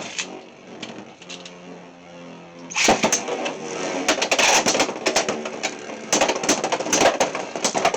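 Beyblade X spinning tops in a plastic stadium. At first they spin with a steady hum, then from about three seconds in there is a loud, rapid run of clacks and rattling as they collide and race around the stadium.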